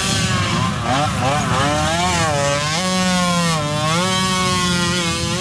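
Small youth ATV engine revving, its pitch falling and rising several times as the quad is ridden along a dirt trail.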